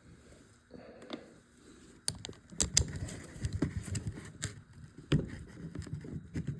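Socket wrench working the bolts of a hydraulic pump housing: irregular metal clicks and knocks of tool handling, starting about two seconds in, as a bolt is broken loose.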